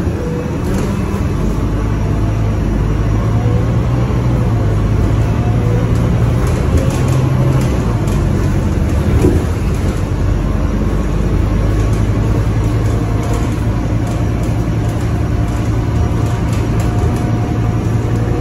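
City feeder bus driving along, heard from inside the passenger cabin: a steady low drone of the bus running, over road noise.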